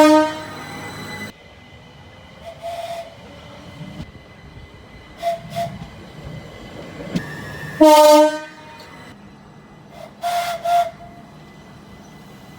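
Train horns sounding in short blasts. There is a loud single blast at the start and another about eight seconds in, with shorter, fainter toots between them and a quick double toot near the end.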